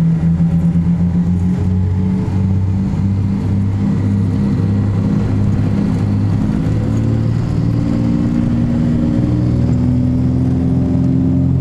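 The twin piston engines and propellers of a Cessna 404 Titan, its geared, turbocharged Continental flat-sixes, running steadily with a deep drone, the pitch creeping slowly upward.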